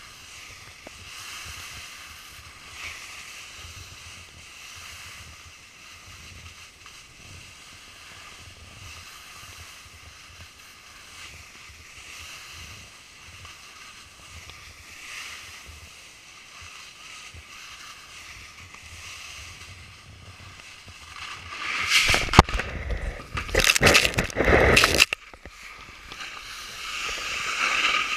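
Snowboard sliding over packed snow, a steady hiss heard through the GoPro's housing. About 22 seconds in comes a burst of heavy knocks and scraping lasting a few seconds, as the board hits something hard or the rider goes down, then the sliding hiss returns and builds.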